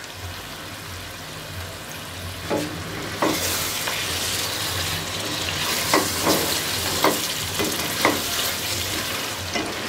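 Chicken karahi sizzling in an aluminium pot while a wooden spatula stirs it. The spatula scrapes and knocks against the pot about once a second, and the sizzle grows louder about three seconds in as the stirring starts.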